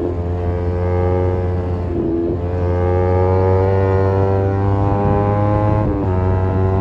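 Kawasaki Z250 parallel-twin engine through a SeaPro aftermarket muffler, under way with the exhaust note slowly climbing in pitch, broken by brief dips about two seconds in and near six seconds.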